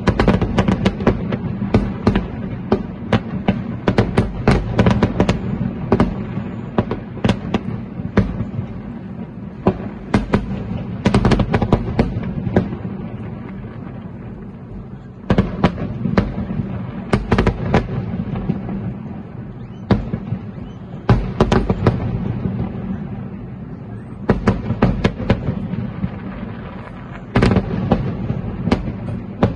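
Aerial fireworks bursting: dense volleys of sharp bangs and pops with short quieter lulls between them, over a continuous low rumble.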